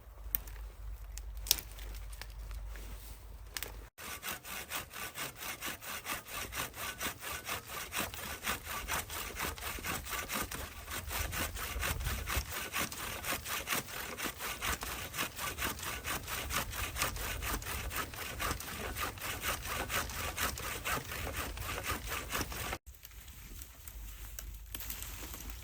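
Hand saw cutting through wood in steady, rhythmic back-and-forth strokes. The sawing starts abruptly about four seconds in and cuts off abruptly near the end, after a quieter stretch at the start with a couple of sharp clicks.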